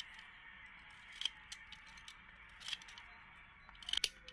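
Hand pruning shears snipping through thin dry twigs: a few sharp clicks and snaps, spaced a second or more apart.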